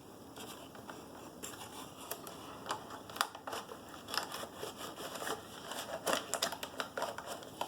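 Packaging being opened by hand: scattered clicks, crinkles and rustles of the box and wrapping being handled, busier near the end.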